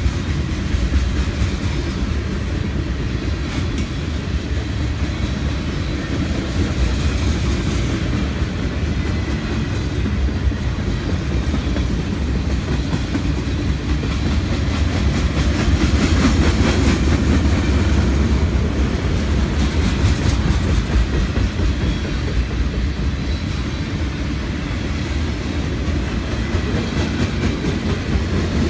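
Freight cars of a Union Pacific mixed freight train rolling past close by: a steady low rumble of steel wheels on rail, with clicks as the wheels pass over the rail joints.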